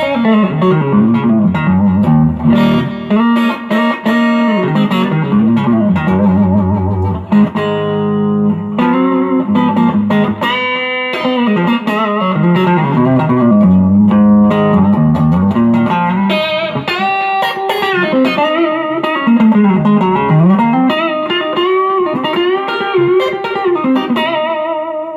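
M-Musi Virgo Fusion electric guitar played on its neck pickup in humbucker mode: continuous single-note lead lines with frequent string bends and vibrato, in a big and dark tone.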